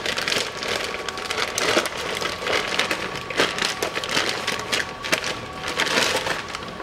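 Plastic packaging bag crinkling and rustling as a new transmission filter is unwrapped, in quick irregular crackles.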